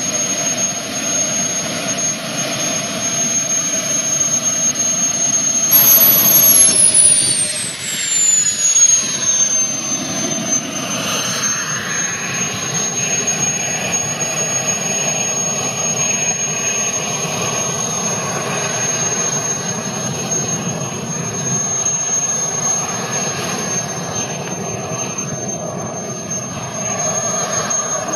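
Radio-controlled model F-15's jet turbine running with a steady high whine. About six seconds in, it gets louder and a second, higher whine sets in, gliding down over a few seconds to settle with the first.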